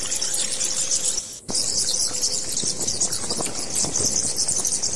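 Bats squeaking in a dense, high-pitched chatter, with a steady run of tiny clicks above it. The chatter breaks off for a moment about a second and a half in.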